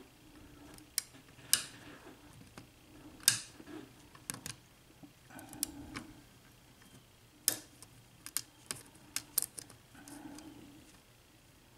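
A lock pick and tension wrench working the pins of a Russwin six-pin mortise lock cylinder during single-pin picking. It gives a scatter of sharp, irregular metallic clicks, a dozen or so, as the pins are lifted and set.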